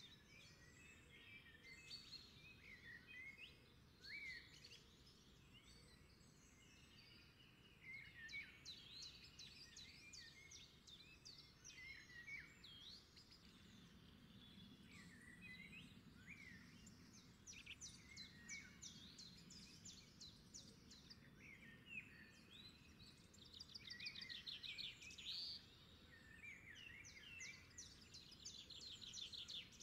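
Faint chorus of wild birds calling: many short chirps and whistled notes overlapping, with rapid trills of about a second each, the densest near the end.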